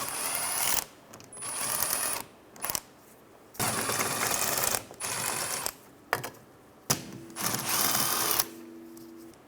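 Air-powered wrench running in bursts of about a second, six times with short pauses between, as it spins out the 17 mm wheel bearing hub bolts.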